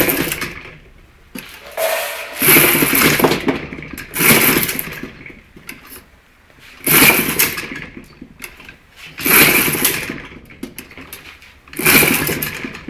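Homemade RC car's 31cc two-stroke string-trimmer engine revved in about five short bursts a couple of seconds apart, each dying away, spinning the chain-driven wheel.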